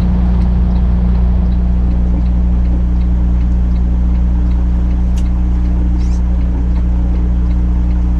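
Tractor-trailer's diesel engine running steadily at low revs, heard inside the cab, with the turn signal ticking faintly about twice a second. A single sharp click about five seconds in.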